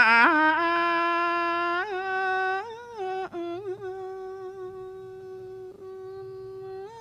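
A Buddhist monk's voice intoning a Thai sermon in a chanted melody, holding one long drawn-out note. It steps up in pitch just after the start, wavers briefly a couple of times, then holds steady and slowly fades, rising slightly at the very end.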